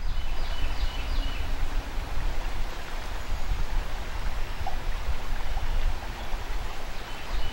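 Flowing river water rushing steadily, with heavy low rumble. A bird sings a few short high notes in the first second or so.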